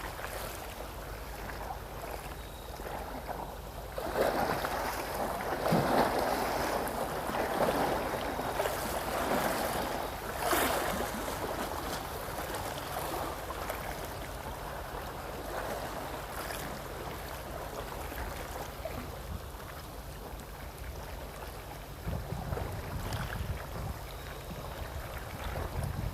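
Sea water washing against the shore in a louder rushing surge for several seconds, over wind buffeting the microphone and a steady low hum.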